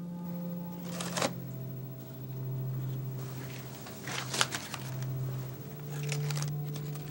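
Paper crinkling in the hands in three short crackly bursts, over a low sustained droning tone that steps down and back up in pitch.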